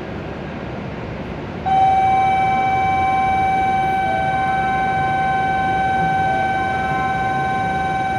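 Steady electronic warning tone, starting suddenly about two seconds in and holding on, as the Shinkansen platform gates and train doors close. Fainter short beeps repeat underneath it.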